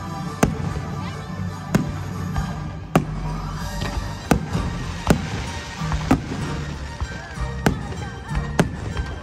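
Aerial firework shells bursting, about eight sharp bangs roughly a second apart, over a steady music soundtrack.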